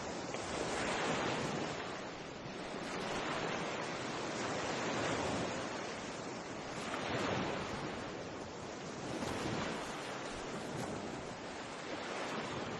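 Sea surf washing against a rocky shore, a steady rush of water that swells and fades about every two seconds.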